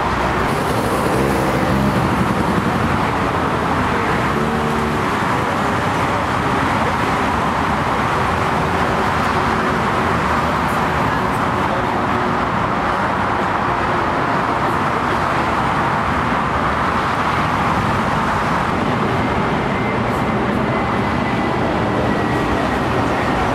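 Steady rushing noise of jet airliner engines, holding at an even level.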